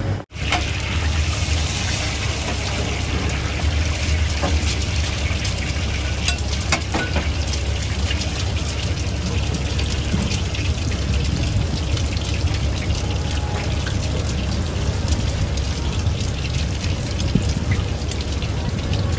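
Eggs sizzling in hot oil in a wok, with fine spattering crackles throughout, over a steady low rumble.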